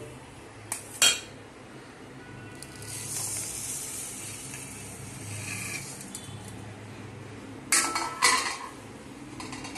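Steel plate and steel kadhai clinking together as washed rice is tipped from the plate into the pan: two sharp clinks about a second in, a soft rush of grains sliding in the middle, and a few more clinks near the end.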